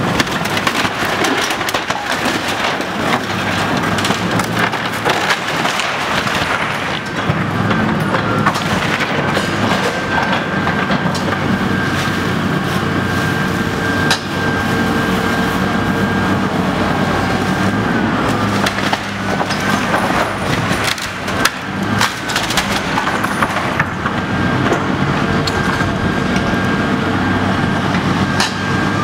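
Tracked hydraulic excavator demolishing a wood-framed, sheet-metal-sided building. The engine runs steadily and its high whine drops and rises a few times as the machine works. Wood framing and metal siding crack and crash repeatedly, loudest about halfway and again a few seconds later.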